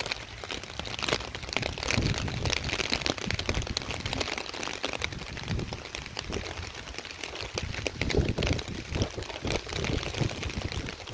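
Rain falling and pattering close to the microphone, a dense irregular spatter of fine ticks, with uneven low rumbles coming and going.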